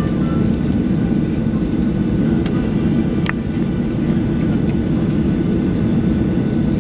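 Boeing 737-800's CFM56-7B engines at taxi power, heard from inside the cabin: a steady low rumble with faint whining tones above it. A single short click about three seconds in.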